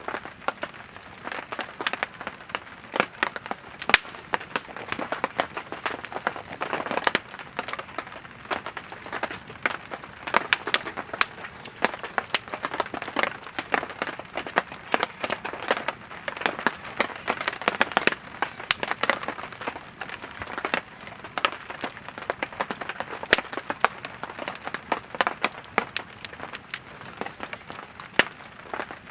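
Wood campfire burning, firewood crackling and popping constantly with many sharp snaps over a soft hiss.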